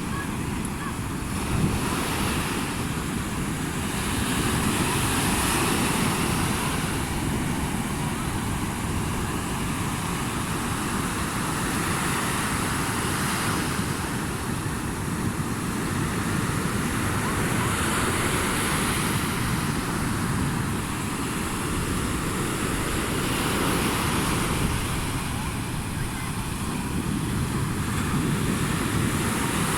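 Sea waves washing onto the shore, a continuous rushing that swells and eases every several seconds.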